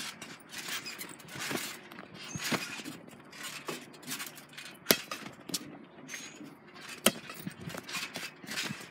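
Trampoline bouncing: thumps and spring creaks recur roughly once a second, with rustling from the phone being handled. Two sharp clicks about two seconds apart near the middle.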